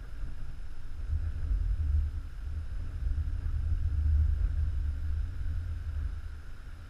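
Wind buffeting a GoPro camera's microphone, a low gusting roar that comes in suddenly, swells twice and dies down near the end.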